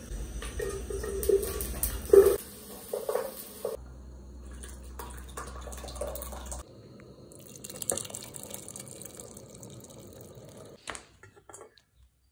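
Tinned tomatoes poured from a can into a metal cooking pot on a camping gas burner, with wet plops and drips. There are a few sharp knocks in the first few seconds and a click near the end.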